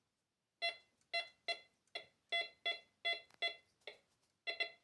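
MD4030 metal detector giving short, broken-up beeps, two to three a second, starting about half a second in, as a bottle cap passes over its coil: the choppy, unclean tone it gives for ferrous metal rather than the clean tone of coins or silver.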